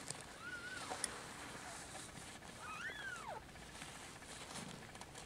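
Two faint, thin, high-pitched mews from a newborn kitten, about half a second in and again around three seconds in, each rising and then falling in pitch. Faint rustling runs beneath them.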